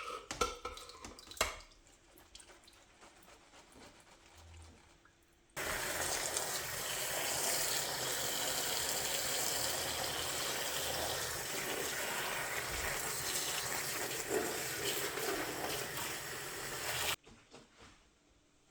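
A few light knocks, then a kitchen tap running hard into a sink for about eleven seconds, starting and stopping suddenly.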